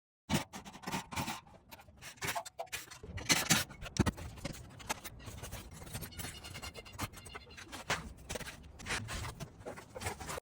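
Irregular scraping, rubbing and sharp knocks from hand work on a shingled roof, loudest a few seconds in.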